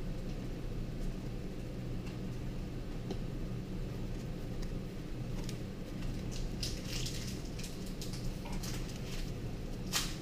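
Foil booster-pack wrappers and trading cards being handled: scattered soft rustles, then a busier stretch of crinkling in the second half and a sharp click near the end, over a steady low hum.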